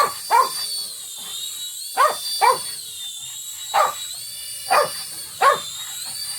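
A dog barking, about seven short barks spaced out in pairs, over the steady high-pitched whine of a mini toy helicopter's electric motors and rotors.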